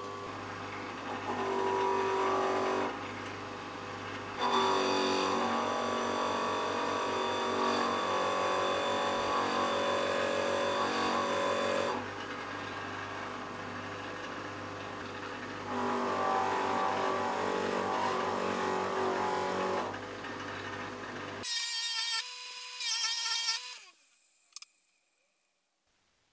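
Bench grinder motor running steadily with a homemade scouring-pad wheel. Three times, a rusty piece of metal is pressed against the spinning pads and the sound grows louder and rougher for a few seconds. About 21 seconds in the grinder is switched off and spins down to quiet.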